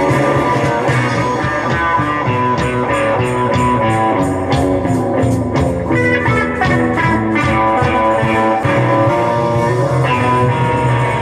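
Guitar-led music in a blues-rock style, playing steadily.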